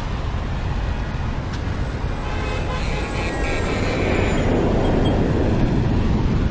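Intro sound effects: a loud, steady rush of traffic-like noise, growing a little louder toward the end, with faint horn-like tones about two to three seconds in.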